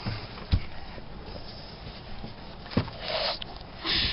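A few soft, sharp knocks, about half a second in and again near three seconds, with two short rustling hisses near the end, over a steady low background hum.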